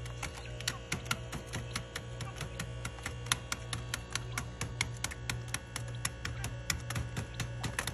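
Quail pecking and stepping on the newspaper-lined cage floor and at the feed: a rapid, irregular run of sharp taps and clicks, several a second, over a steady low hum.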